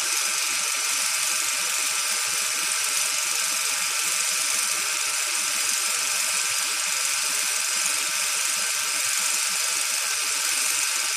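A steady, even hiss of noise, mostly high-pitched, that holds at the same level throughout.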